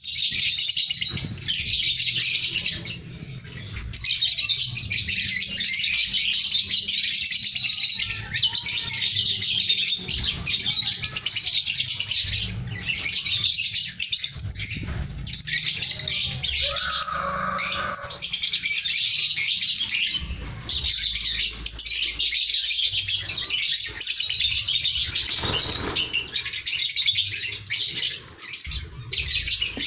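Lovebirds chattering: a dense, nearly unbroken stream of high, shrill chirps, easing briefly a little past halfway.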